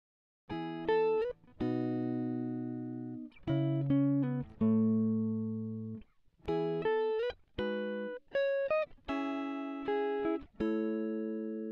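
Music: a clean-toned guitar plays a run of plucked single notes and short chords, some sliding up in pitch, starting about half a second in.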